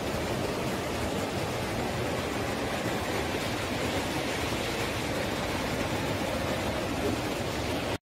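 Steady rush of the Chalakudy River in full flow, swollen high with monsoon rain.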